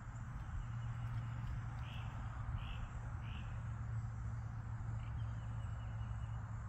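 Outdoor background of a steady low hum and hiss, with three short high chirps, evenly spaced, about two seconds in.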